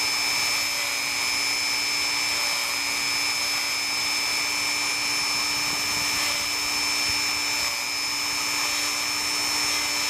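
Dremel rotary tool running steadily with a small wire brush attachment scrubbing rust off the metal ferrule of a scratch awl: a constant high motor whine over a steady hum.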